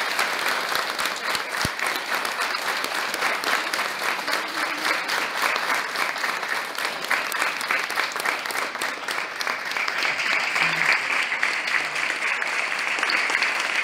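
Large audience applauding: many hands clapping in a dense, continuous stream.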